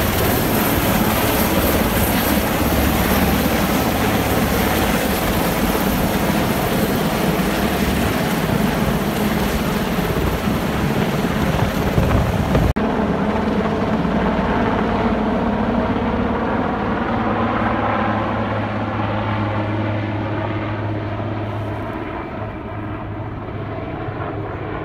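Sikorsky S-61N helicopter's rotors and twin turboshaft engines, heard flying low overhead, a loud steady thrumming noise. About halfway through, the high hiss drops out suddenly, and the sound fades over the last few seconds as the helicopter moves away.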